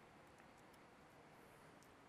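Near silence: room tone with a few faint clicks of laptop keys being typed.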